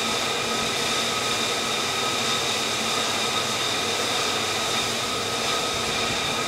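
Jet engine running: a steady rushing hiss with a steady high whine over it, unchanging.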